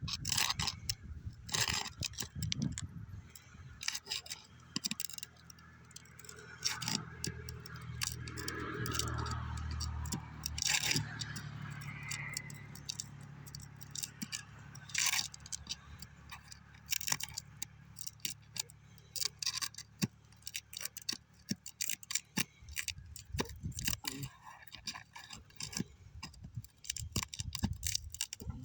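Irregular metallic clicks, taps and scrapes of a metal hand tool working under asphalt roof shingles to free their nails.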